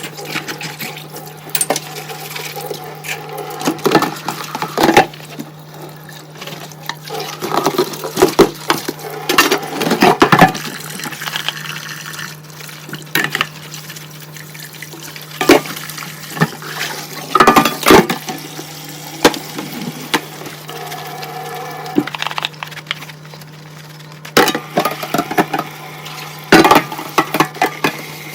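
Dishes being washed by hand under a running kitchen tap: steady water flow and splashing, with frequent clinks and knocks of dishes against each other and the sink, over a steady low hum.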